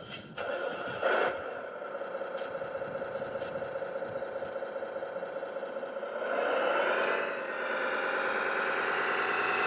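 Radio-controlled model vehicle's small electric motor and gears whining steadily, after a few clicks at the start; about six seconds in the whine rises in pitch and gets louder as the motor speeds up.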